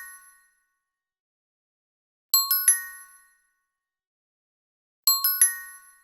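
Subtitle pop-up sound effect: a bright three-note chime, the notes rising quickly one after another and ringing out briefly. It plays twice, about 2.7 seconds apart, with the fading tail of an earlier one at the start.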